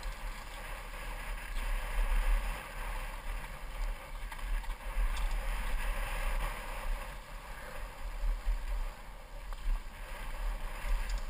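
Wind buffeting a helmet-mounted GoPro's microphone during a fast mountain-bike descent on a dirt trail, a steady deep rumble under the rushing noise of the tyres on the ground.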